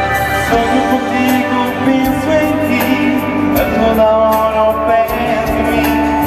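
A male singer singing into a microphone over backing music, amplified through a stage PA at a live concert.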